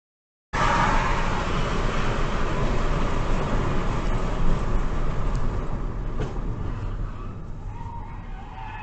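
Road and tyre noise of a car driving, heard from inside the cabin. It starts abruptly about half a second in, then slowly fades as the car slows from about 67 to 48 km/h.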